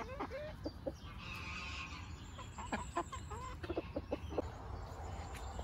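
Pekin bantam chickens clucking: short, scattered clucks spread across the few seconds, with one brief higher note a little over a second in.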